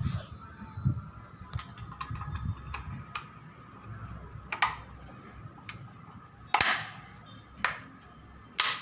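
Sharp plastic clicks and knocks from hands handling a smoke detector, the loudest coming about once a second in the second half.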